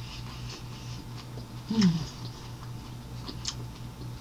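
A woman gives a short 'mm' hum about two seconds in, falling in pitch, amid a few faint mouth clicks and smacks while eating. A steady low electrical hum runs underneath.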